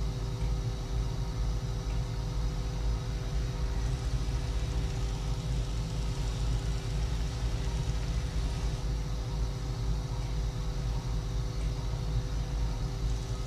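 Steady low rumble with a constant hum of a few steady tones, from operating-room equipment running during arthroscopic shoulder surgery.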